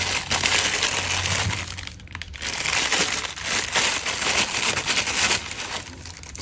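Thin clear plastic bag wrapped around a pair of sunglasses crinkling as it is handled, in two spells with a short pause about two seconds in, then quieter near the end.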